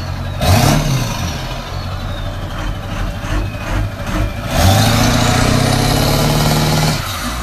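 Ford 7.3-litre Power Stroke turbo-diesel V8 pickup revving hard to roll coal. The engine pitch rises and falls about a second in, then climbs again after four and a half seconds, holds at high revs and drops near the end.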